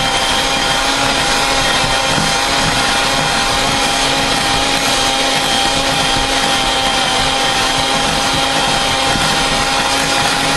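Electric hand mixer running steadily with an even motor whine, its beaters working through a thick, dry mix of crushed pineapple and instant pudding powder in a glass bowl.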